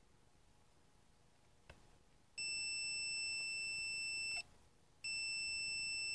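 Multimeter continuity beeper sounding a steady high-pitched beep twice, each about two seconds long, as the test probes touch pins that are connected: the beep signals a closed circuit between the probed points. A faint click comes just before the first beep.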